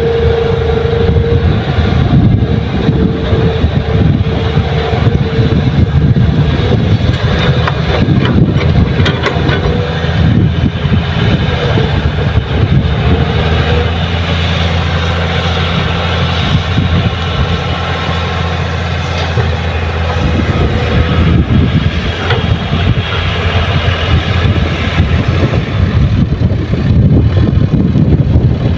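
Heavy diesel engines of an excavator and dump truck running steadily during soil loading, a low drone with a few sharp knocks about eight to ten seconds in.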